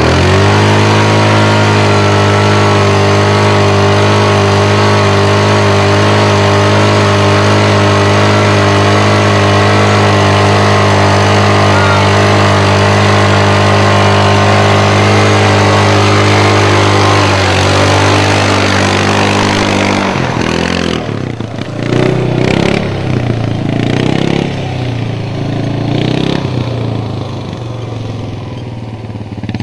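ATV engine held at steady high revs while its rear wheels spin in deep mud. After about 20 seconds the revs become uneven and rise and fall as the quad pulls free and drives off.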